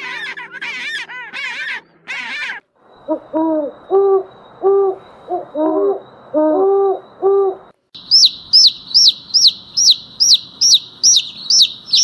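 A quick run of honking bird calls, then an owl hooting: a steady series of short, low hoots lasting about five seconds. Near the end, chicks peep rapidly and loudly, about four high peeps a second.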